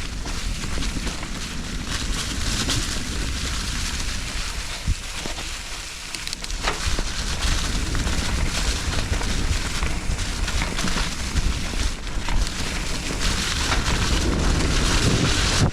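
Nukeproof Giga 297 mountain bike riding down a dirt trail: steady tyre and trail noise with wind on the microphone and scattered knocks and rattles from the bike.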